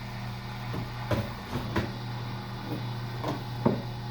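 Electric wire stripping machine running with a steady low motor hum, with several short knocks and clicks of the wire and machine being handled.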